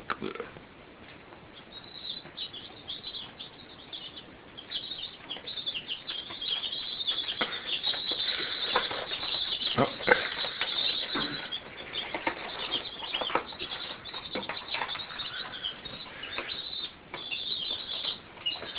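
A group of young chicks peeping continuously in short high chirps, busier from about six seconds in, with scattered short rustles and knocks among them.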